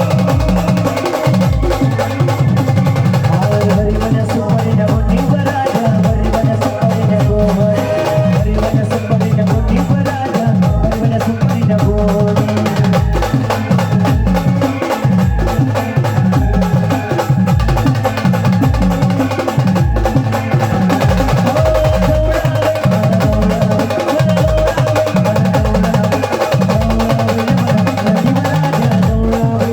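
Maharashtrian brass band playing a song, with sustained melody lines over a steady, fast drum beat.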